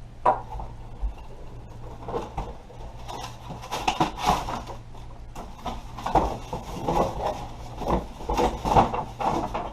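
Handling noise as a polymer airsoft shotgun and its packaging are lifted out of the box: irregular rustling with scattered knocks and clicks, over a low steady hum.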